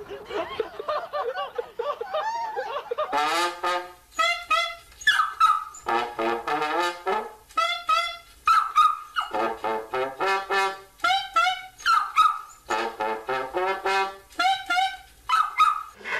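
From about three seconds in, a soprano saxophone and a trombone play short phrases of notes with gaps between them. A dog howls along at the end of each phrase. Before that, a few seconds of overlapping voices.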